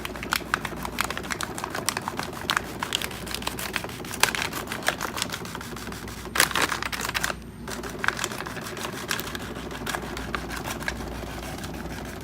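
Typewriter typing: a fast, uneven run of key strikes, with a longer noisy burst about six and a half seconds in and a brief pause right after it before the typing resumes.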